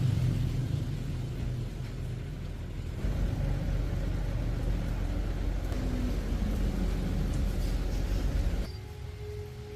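Steady low mechanical rumble, like a motor vehicle running, changing character about three seconds in and dropping off shortly before the end.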